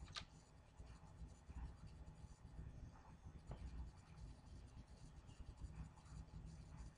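Near silence: faint room tone with a low hum and a few faint ticks, the clearest a single sharp click about a quarter second in.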